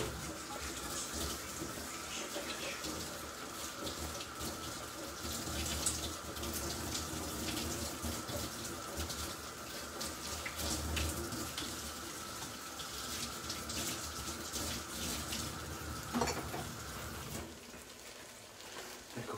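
Fish soup bubbling in a stockpot and chopped tomatoes sizzling in a frying pan on the hob: a steady crackle of many small pops. A faint steady high tone and a low hum under it stop near the end.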